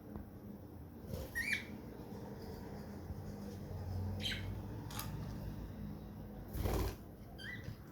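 Pet budgerigar giving a few short chirps, about three seconds apart, with a couple of sharp clicks or rustles between them.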